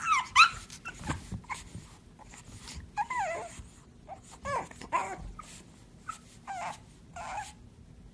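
Pug puppy whining: a string of short, high-pitched squeaky cries, bending in pitch, at uneven intervals.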